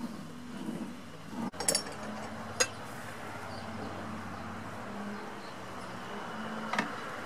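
A few sharp metallic clinks and knocks as a steel carriage plate with roller bearings is handled and set onto a steel rail: a small cluster about two seconds in, another shortly after, and one near the end.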